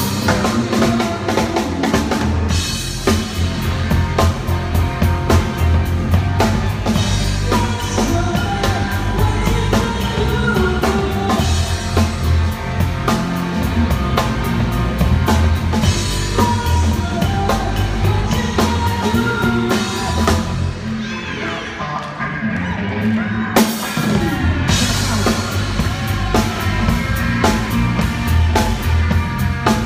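Live rock band playing, with the drum kit loudest and electric guitars behind it. About three quarters of the way through the cymbals drop out for a couple of seconds, then the band comes back in on a loud hit.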